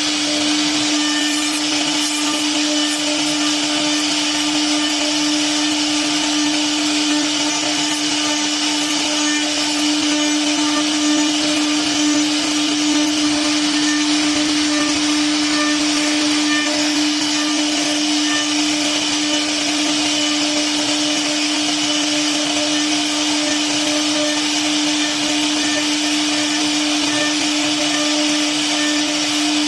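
CNC router spindle running with a steady high hum, over a constant rushing noise of the machine at work.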